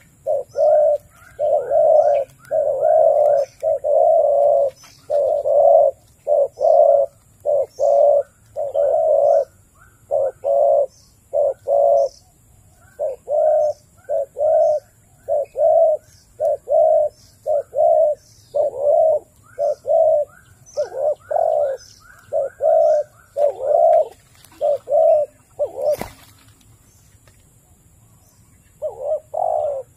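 A dove cooing in a long, rapid run of short coo notes, about two a second. It stops a few seconds before the end with one sharp click, and the cooing starts again briefly near the end.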